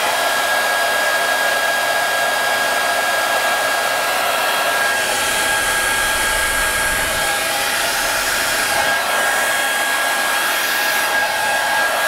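Rospec HD8812W folding hair dryer running steadily on its second, highest setting with full heat: a continuous rush of air with a thin steady high whine from the motor.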